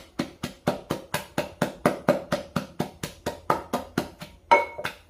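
Wooden pestle pounding chili-paste ingredients in a clay mortar: steady, even strikes at about four a second, with one harder strike near the end.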